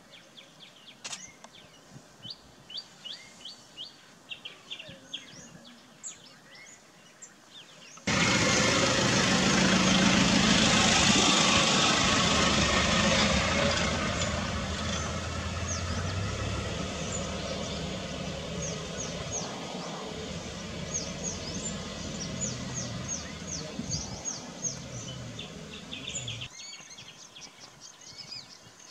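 Small birds chirping in repeated short, high, falling notes through the whole stretch. About eight seconds in, a loud steady rushing noise with a low hum cuts in suddenly. It drowns the chirping at first, eases off gradually and stops abruptly near the end.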